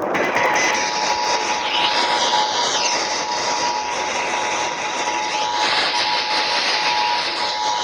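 Emergency Alert System two-tone attention signal (853 Hz and 960 Hz together), steady and breaking up slightly, heard off-air through heavy radio static hiss. It starts just after a brief burst of clicks and a high tone at the very start, the tail of the digital SAME header.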